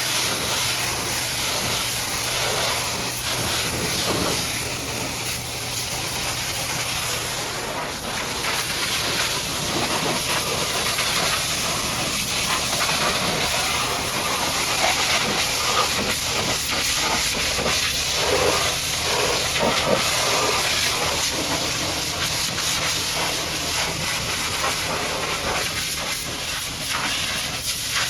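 High-pressure washer jet spraying water onto a muddy truck: a loud, steady hiss that changes texture as the jet moves over the surface. A low steady hum lies under it for about the first eight seconds.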